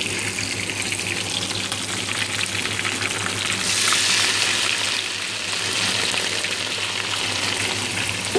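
Beef mince frying in a pan with a steady crackling sizzle. About three and a half seconds in, hot oil is poured onto it and the sizzle flares up louder for a second or so, then keeps sizzling more strongly as the oil bubbles through the mince.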